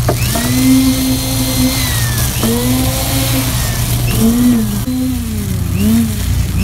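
Handheld electric concrete vibrator whining, its pitch dipping and recovering again and again as it works in the fresh concrete, over the steady running of a compact tracked excavator's engine.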